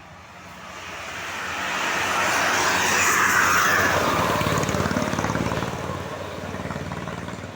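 A tour bus driving past. Its engine and tyre noise swell to a peak about three seconds in, then fade away.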